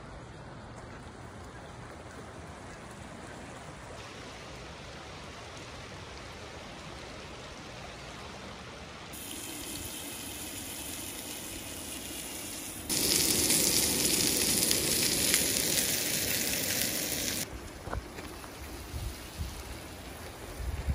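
Steaks sizzling in a frying pan on a propane camp stove, an even hiss loudest for about four seconds in the middle. Before it there is steady wind on the microphone, and near the end come a few short knocks as tongs work the meat.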